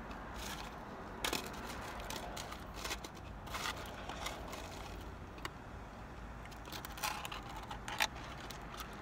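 Scattered crinkles, scrapes and clicks of fingers picking through fried popcorn shrimp and fries in a cardboard takeout box, the sharpest about a second in and near the end.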